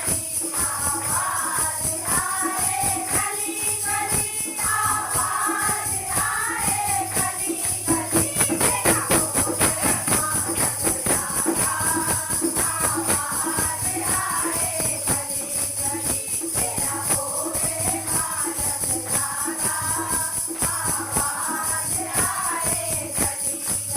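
A kirtan group singing a Hindu devotional bhajan to the goddess, with jingling hand percussion keeping a steady beat. Around eight seconds in the singing drops back for a moment and the percussion comes to the fore.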